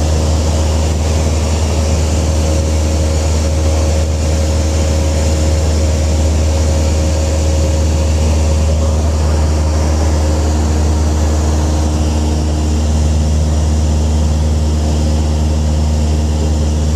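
Small propeller airplane's piston engine and propeller heard from inside the cabin in level flight: a loud, steady deep hum with a few fainter steady tones above it and a hiss of airflow.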